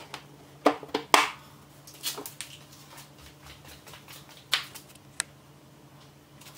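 A handful of sharp, scattered plastic clicks and snaps from push-in plastic retainer plugs being pried out of an EZGO RXV golf cart's rubber floor mat.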